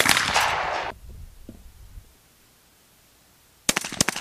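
Two shots from a 20-gauge SKB Model 1300 gas-operated semi-automatic shotgun. The first, the loudest, comes at the start and rings out for about a second. The second comes about three and a half seconds later as a quick cluster of sharp cracks.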